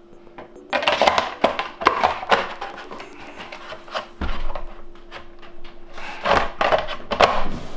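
A plastic-bodied chainsaw and its bar cover being handled on a table: irregular knocks, clatter and rubbing, with a heavier thump about four seconds in.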